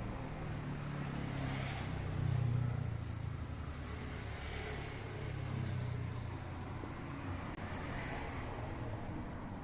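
Large KDK ceiling fan coasting down after being switched off: a low steady hum with a soft rush of air that swells about every three seconds.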